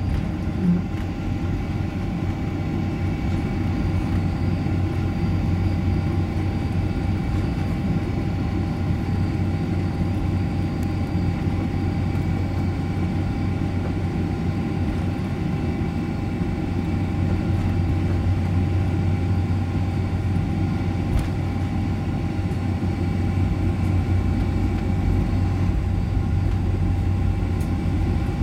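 Steady cabin noise inside a Boeing 747-400 taxiing after landing: a low rumble from the engines at idle and the rolling aircraft, with a few faint steady whining tones above it.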